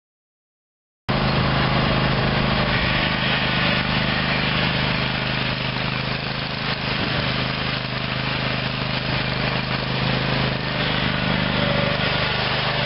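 Kohler 25 HP gas engine of a Big Dog Black Jack zero-turn lawn mower running steadily. The sound cuts in abruptly about a second in.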